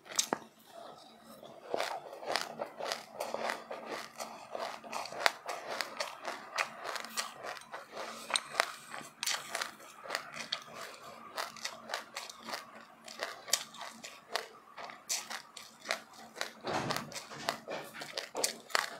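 Close-miked chewing of crunchy sesame seeds with passionfruit: a rapid, irregular run of small crunches, several a second, over a faint steady hum.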